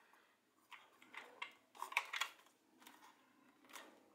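A few irregular, faint plastic clicks and scrapes as fingers pick and tug at the sharpener fitted in the end of a plastic pencil box; the sharpener is stuck and won't pull out.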